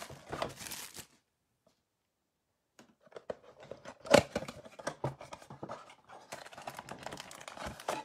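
Foil trading-card packs and a cardboard Panini Prizm blaster box being handled, rustling and crinkling as the packs are pulled out of the box and stacked. There is one sharp tap about four seconds in, and the sound drops out for under two seconds near the start.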